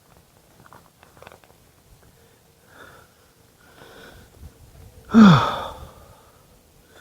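A person's short, loud vocal burst about five seconds in, its pitch dropping quickly.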